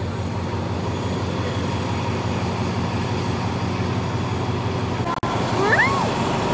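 Diesel freight train running past, a steady rumble with a low engine hum. About five seconds in, the sound drops out for an instant, then a short chirping call of quick rising and falling pitch sounds over the rumble.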